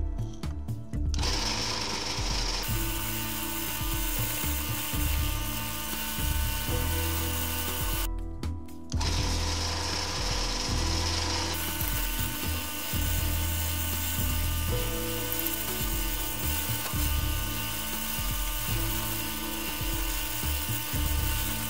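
Drill press boring into a wooden lure blank held in a vise, a steady motor and cutting noise that stops briefly about eight seconds in and then resumes, with background music throughout.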